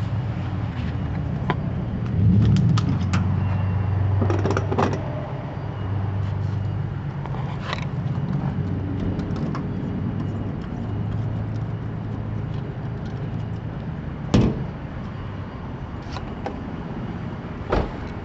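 Steady low engine hum, with scattered knocks and clicks; the loudest knocks come about two seconds in and twice more in the second half.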